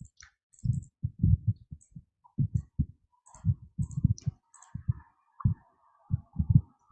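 Short, muffled low thumps in an irregular run of singles and pairs, with light clicks of a computer mouse and its scroll wheel.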